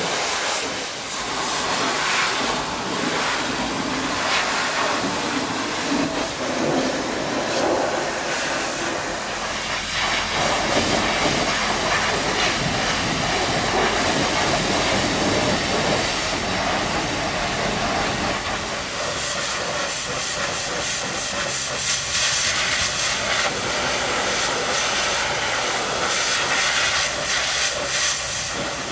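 High-pressure washer lance spraying water onto a bus's wheel and underbody: a steady hiss of spray.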